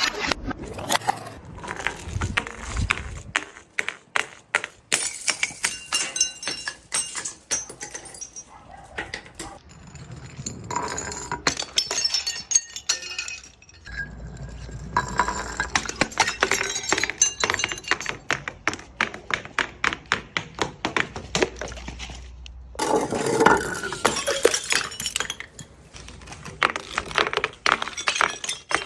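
Glass bottles smashing over and over, with many sharp cracks and the clinking and tinkling of glass shards, in a series of separate bursts.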